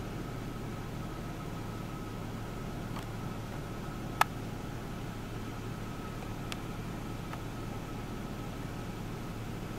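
Steady hiss and low hum, with a single sharp click about four seconds in and a few fainter ticks.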